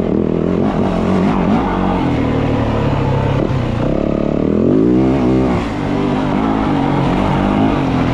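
2024 Yamaha WR450F's single-cylinder four-stroke engine on the move, its pitch rising and falling with the throttle. It climbs clearly about four seconds in, then wavers and drops back.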